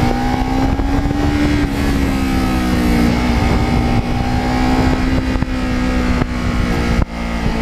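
Kawasaki Ninja 650R's parallel-twin engine running under way at a steady speed, its pitch rising slightly and easing back, with wind rush on the microphone.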